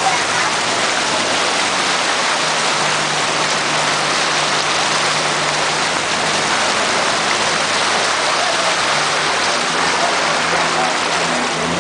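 Floodwater rushing and splashing along the side of a vehicle driving through it, a loud steady wash, with a low steady engine hum underneath.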